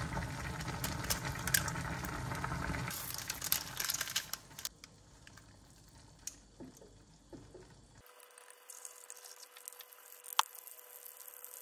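Kitchen handling sounds while a sauce is made in a ceramic bowl: an egg, seasoning and a squeezed mayonnaise packet go in and are stirred together, with a few sharp clicks near the end. A steady hiss fills the first few seconds.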